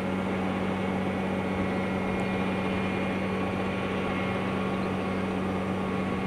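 Steady low mechanical hum: a machine or motor running at a constant pitch under a faint even hiss, with no change.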